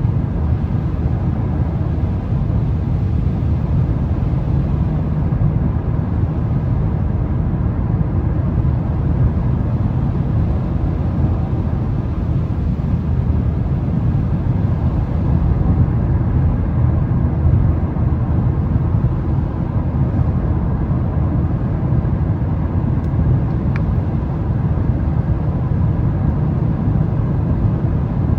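Steady road noise from inside a Mazda 3's cabin on a wet highway: a low rumble of tyres and engine with a fainter hiss of water above it, and one small tick near the end.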